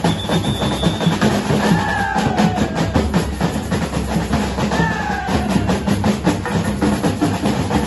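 Batucada samba percussion ensemble playing a dense, driving rhythm on bass drums, snares and other drums. Two short falling tones sound over it, about two and five seconds in.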